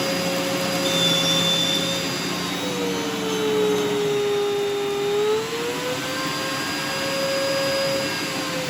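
Miele upright vacuum cleaner's motor running with a steady whine that drops in pitch about three seconds in and rises back a few seconds later. It sounds rough and not as it should, because the motor was fouled by fine powder sucked up while the bag was not seated properly.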